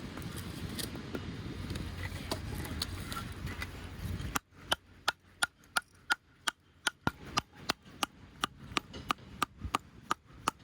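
A steady rushing background noise, then, after a sudden change about four seconds in, a kitchen knife chopping on a cutting board: a quick run of sharp knocks, about three to four a second.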